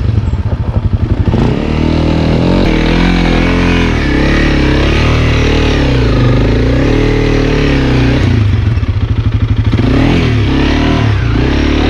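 Single-cylinder trail motorcycle engine pulling at low revs in low gear. Its slow firing pulses are plainly heard, and the throttle is blipped so the revs rise and fall several times as it works up a steep rocky climb.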